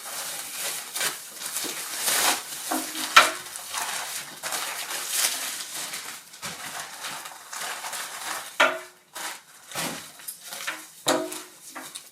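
Rustling and crinkling of packaging as a leather handbag is unwrapped and handled, with irregular light clicks and taps and a sharper click about three seconds in.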